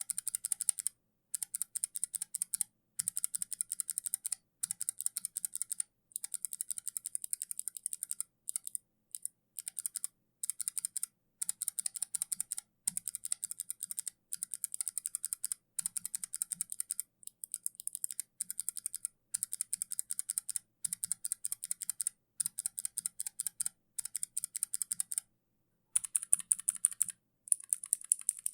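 Kailh mechanical keyboard switches being typed on in fast runs of keystrokes with short pauses between them. The clicks become louder near the end.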